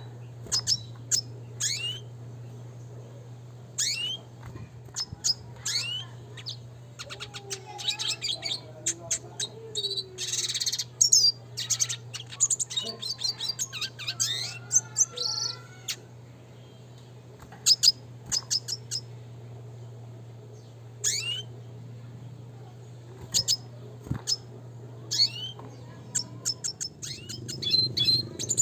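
Red siskin singing in phrases of quick high chirps, rapid trills and short rising notes, with pauses between the phrases. A steady low hum runs underneath.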